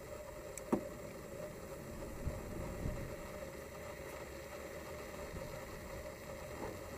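Hands handling the plastic injector wiring harness cover and hoses on an Opel Corsa engine: a sharp click under a second in, then two dull knocks a couple of seconds later, over steady background noise.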